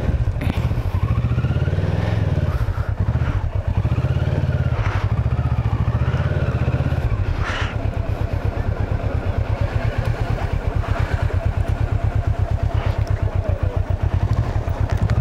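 Motorcycle engine running with a steady low throb, a little heavier for the first several seconds.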